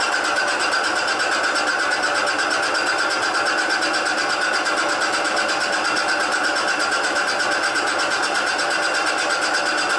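Milling machine in horizontal setup cutting through a cast-iron part, a steady metal-cutting grind with a fine, fast, even pulse that does not let up.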